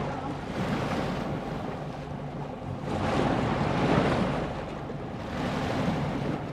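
Wind buffeting the microphone and sea wash around a boat at sea, over a low steady engine hum. The wind and water noise swells louder about three seconds in, then eases.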